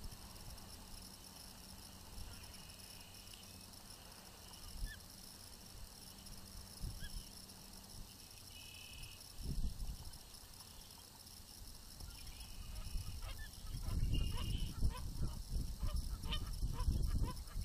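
Ospreys on the nest giving short high-pitched calls, scattered through the second half. Low thumping and rustling in the last few seconds as the birds move about on the nest, over a steady high hiss.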